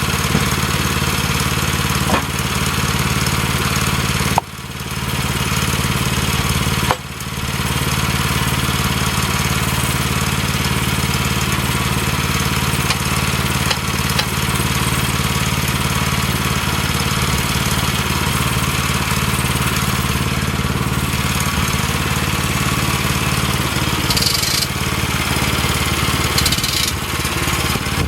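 Woodland Mills portable bandsaw sawmill's gasoline engine running steadily, with a couple of brief sudden drops in level.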